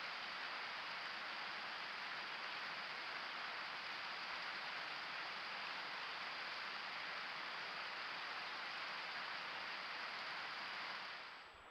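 Steady, even rush of running water, as from a creek flowing under a footbridge, with no other events in it; it cuts off near the end.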